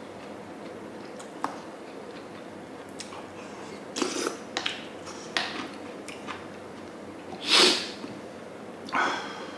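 A person eating hot soup: a few light spoon clicks, then several short breathy mouth and nose sounds of slurping and sniffing, the loudest about seven and a half seconds in.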